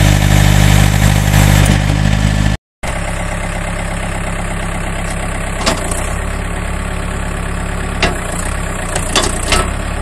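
John Deere 110 tractor loader backhoe's diesel engine running steadily as the loader and backhoe are worked. The sound breaks off briefly about two and a half seconds in, then continues a little quieter, with a few sharp clicks in the second half.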